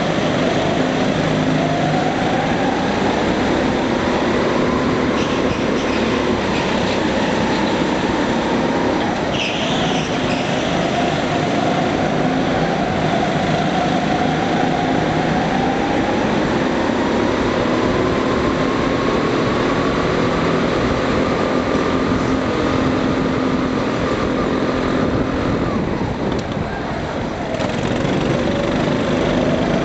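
Go-kart engines running hard from the driver's seat, their pitch rising and falling again and again as the karts accelerate and lift through corners. The sound changes abruptly near the end.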